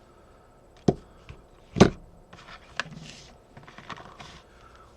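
A few sharp clicks and knocks of objects being handled, the loudest just under two seconds in, followed by lighter ticks and rustling.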